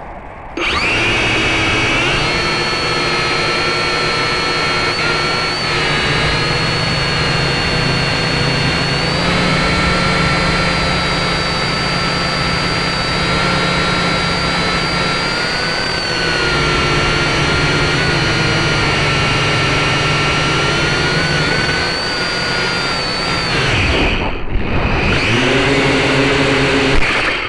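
Small camera drone's electric motors and propellers whining, heard close up from the drone itself: they spin up suddenly about half a second in and hold a steady high whine that shifts a little in pitch in flight. About three seconds before the end they cut out briefly, spin up again, then stop.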